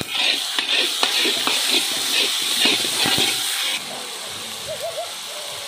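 Onion, tomato and spice masala sizzling loudly in hot oil in a large wok, with the ladle scraping and clicking against the pan as it is stirred. The sizzle starts suddenly and drops off sharply almost four seconds in.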